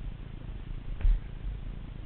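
Mountain bike rolling down a rough dirt trail, heard through the rider's body-mounted camera as a steady low rumble and rattle, with one hard knock about a second in.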